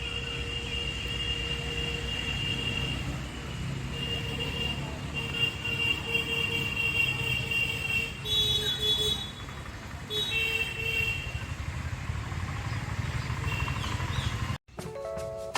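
Road traffic rumbling, with long, drawn-out vehicle horn blasts held for several seconds at a time and changing pitch about halfway through. The sound cuts off abruptly near the end into background music.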